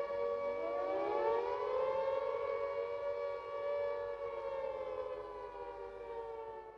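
Air-raid siren wailing on a steady pitch, with a second siren tone winding up in pitch about half a second in and then holding alongside it; the sound eases off slightly near the end.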